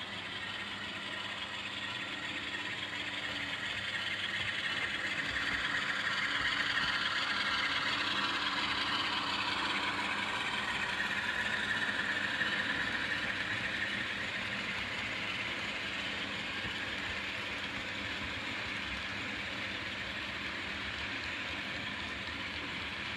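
Model container train running past on the layout's track: a steady rolling rumble of wheels on rail that grows louder over the first several seconds, then eases off a little.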